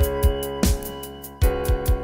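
Electronic background music: held keyboard chords over a kick-drum beat.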